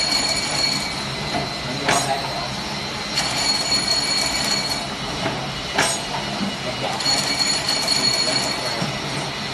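Automatic heat-cutting machine for fabric straps running through a repeating cycle. A steady high whine lasts about two seconds, then comes a sharp clack, with the cycle repeating about every four seconds.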